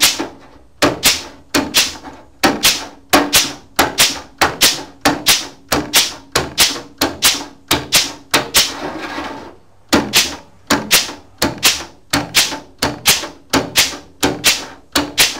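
Air flanging tool punching a joggle flange into the edge of a steel quarter panel: sharp clacks of about three a second in runs with short pauses, with a brief hiss near the middle.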